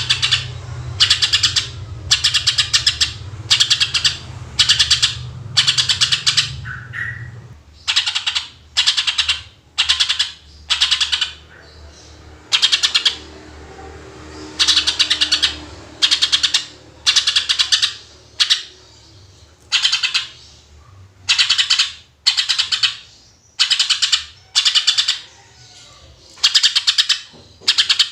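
Cucak ijo (greater green leafbird) singing in rapid 'tembakan' bursts: short phrases of quick repeated notes, about one a second, with brief pauses between. A low rumble sits under the song until about a quarter of the way in, then stops.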